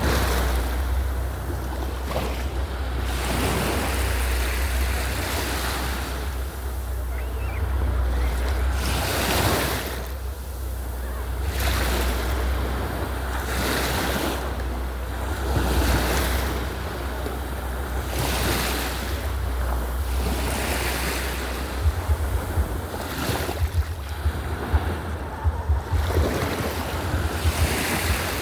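Ocean waves washing in repeated surges every couple of seconds, with wind rumbling on the microphone; the wind buffets harder near the end.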